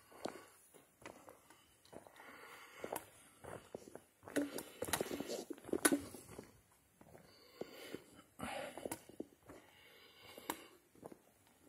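A hiker's footsteps going downhill on a trail of loose stones and gravel: irregular crunching steps with sharp clicks of stones shifting underfoot, louder and denser around the middle.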